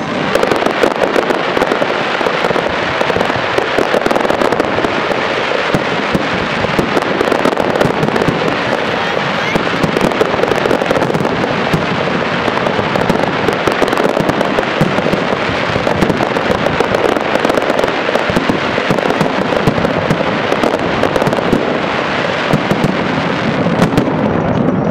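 Fireworks display in a dense barrage: aerial shells bursting and crackling in rapid succession, loud and continuous with no pauses between reports.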